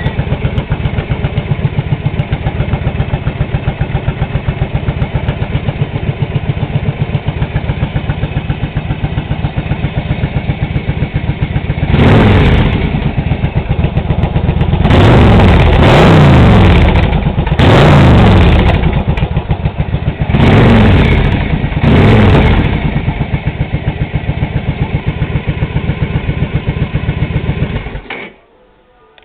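Motorcycle engine idling with a steady rapid beat, revved in five short throttle blips about halfway through, then settling back to idle and switched off near the end.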